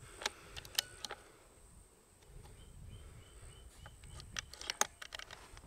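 Quiet outdoor ambience: a faint low rumble with scattered sharp clicks, the loudest a little before the end, and a short run of faint high chirps repeated a few times a second about halfway through.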